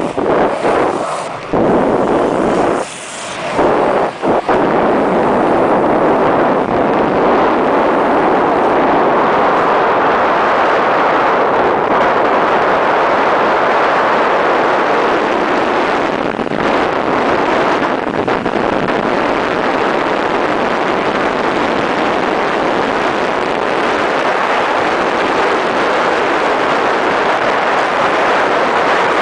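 Steady loud rush of wind on the microphone, mixed with the roar of inline skate wheels rolling on asphalt at high speed. It dips briefly a few times in the first few seconds.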